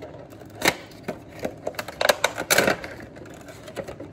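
A cardboard Funko Pop box being opened and its clear plastic insert pulled out: a sharp click about two-thirds of a second in, then a burst of crinkling, clicking plastic and cardboard around the middle, with smaller handling clicks around it.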